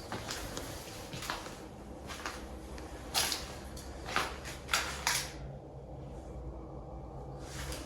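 Footsteps on a trail, roughly one a second, with a pause of about two seconds near the end.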